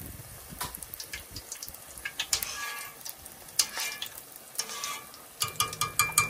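Corn fritter batter deep-frying in hot vegetable oil, a steady sizzle full of sharp crackling pops. A metal spoon scrapes and clinks against the stainless steel pan as it scoops out stray bits of batter.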